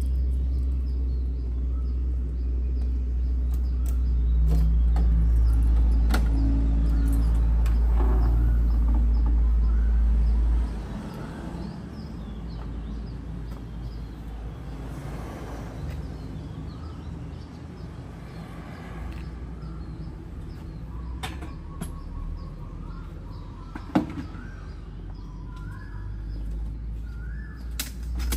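Outdoor ambience with small birds chirping over and over. A steady low rumble runs for roughly the first ten seconds and then cuts off suddenly. A few knocks and clunks come as gear is handled in the back of a van, the loudest about 24 seconds in.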